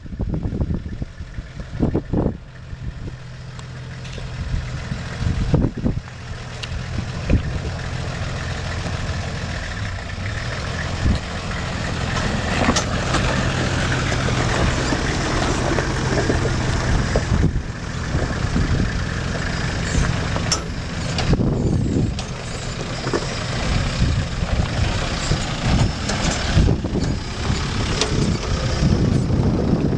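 Engines of off-road SUVs, a Nissan Patrol and a UAZ, running at low speed as they crawl over rock, growing louder over the first dozen seconds as the Patrol comes close past the camera. Occasional sharp knocks sound through the engine hum.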